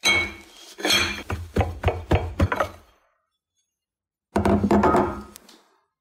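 Ceramic mug knocked and tapped upside down on a ceramic plate to turn out a microwave mug cake: a run of clinks and thunks over the first three seconds, then another short clatter of crockery about four seconds in.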